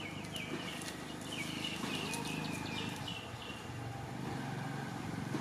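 A quick series of short, high chirping animal calls, about a dozen in the first three seconds or so, over a low steady rumble.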